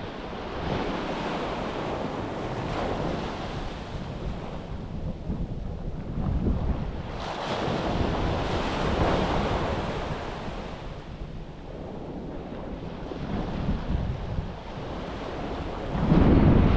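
Sea waves washing onto a beach, swelling to a peak about halfway through and then ebbing, with wind buffeting the microphone. Near the end a gust brings a sudden louder low wind rumble.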